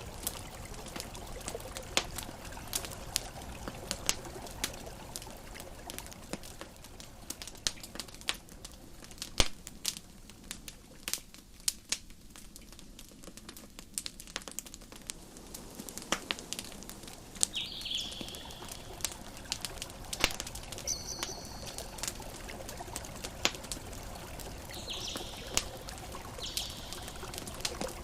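Crackling campfire: irregular sharp pops and snaps over a steady soft rush of water. A few short high chirps come in the second half.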